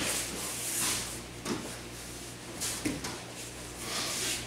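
Rustling of martial arts uniforms and bodies shifting and scuffing on foam floor mats as two people release a grappling hold and get up, in several short swishes.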